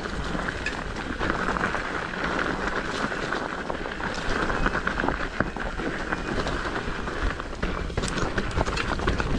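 Mountain bike riding down a rutted dirt downhill trail: tyres rolling over the ground and the bike clattering over bumps in a steady stream of small knocks.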